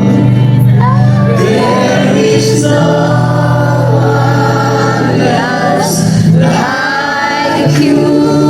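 Gospel music: a choir singing over long, held low instrumental notes, without a break.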